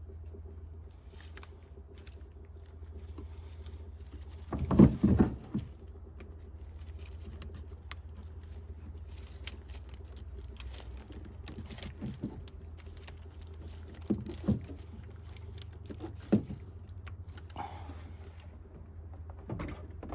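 Scattered clicks and knocks of hands handling wiring connectors and tools, with a loud cluster of knocks about five seconds in and single clicks every few seconds after, over a steady low hum.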